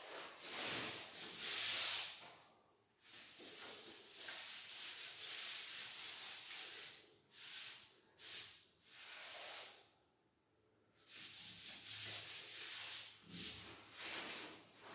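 A hand-held pad rubbing back and forth over ceramic floor tiles, wiping the tile surface in repeated strokes, with two short breaks.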